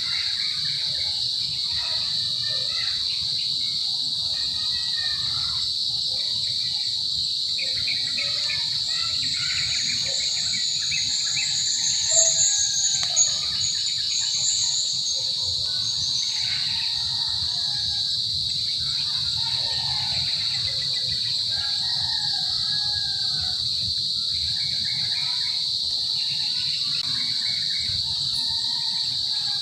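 Insects keep up a steady high-pitched buzzing chorus while birds call here and there. A louder, higher trill stands out near the middle.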